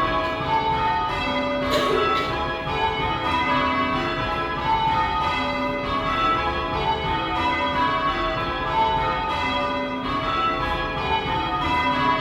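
Six 139-year-old cast-iron church bells rung in call changes, striking one after another in a steady repeating row. Their tones overlap and ring on, heard from inside the bell chamber.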